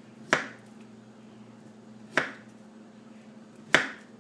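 Knife chopping through a cooked, peeled beet: three sharp chops, about two seconds and then a second and a half apart.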